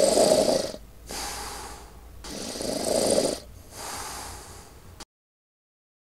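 Cartoon snoring sound effect for a sleeping backhoe loader: slow breaths alternating louder and softer, two snore cycles, cutting off suddenly about five seconds in.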